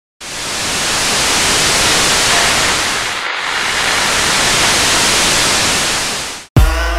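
Loud hiss of television static, like an untuned analog TV, with one brief dropout about three seconds in. Near the end the static cuts off sharply, and a deep bass hit opens electronic music with a held synth chord.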